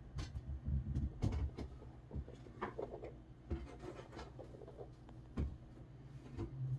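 Faint handling noise from a phone held against a computer screen: scattered small clicks and rubs over a steady low hum.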